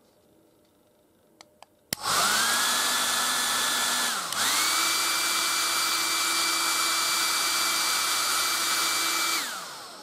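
Black & Decker Stowaway 1200 travel hairdryer, diffuser off, switched on with a click: its fan motor spins up to a loud, steady whine over rushing air. Just after four seconds it dips briefly and comes back at a higher pitch. Near the end it is switched off and the whine falls away as the fan winds down.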